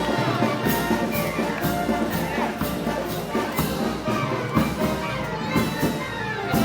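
Live Moros y Cristianos festival band music with brass and a steady percussion beat about twice a second.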